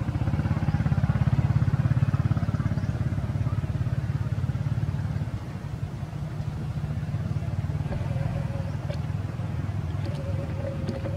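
A motor vehicle's engine running, a steady low rumble that is loudest in the first two seconds.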